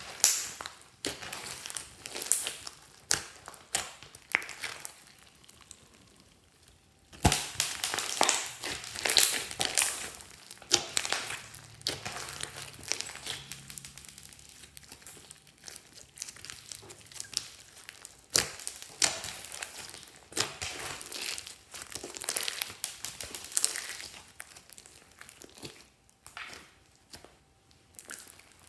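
Hands kneading and squeezing a large lump of glossy slime mixed with foam beads, giving an irregular run of wet, sticky crackles and clicks. The sounds thin out about five seconds in, then come back sharply a couple of seconds later.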